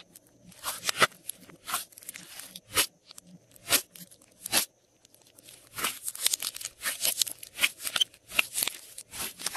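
Glossy slime being pressed and kneaded by hand, giving irregular sharp, wet pops and crackles that come closer together in the second half.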